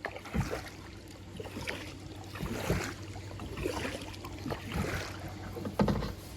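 Kayak paddling: the paddle blades dipping and splashing in the river water with irregular drips and splashes, a louder stroke near the end.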